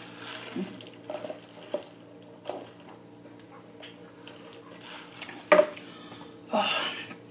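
Close-miked eating sounds: chewing crispy fries with small clicks and lip smacks, a sip through a straw from a paper soda cup, a sharp knock about five and a half seconds in as the cup goes back down, then a breathy exhale.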